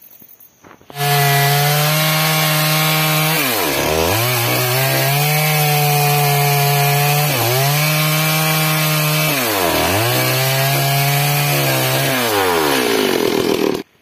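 Stihl two-stroke chainsaw running at high revs while cutting through a log. Its pitch sags sharply and recovers about three times and drops again near the end. The sound starts and stops abruptly.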